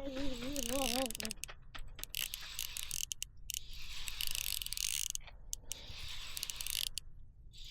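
Spinning fishing reel being cranked in several bursts, its gears whirring with a ratcheting click, as a hooked fish is reeled in. A short wavering hum sounds in the first second.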